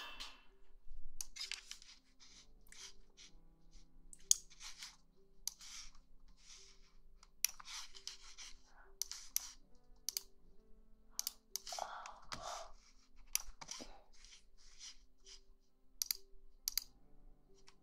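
ASMR trigger sounds: irregular short scratchy clicks and rustles, a few a second at times, over faint soft background music with held notes.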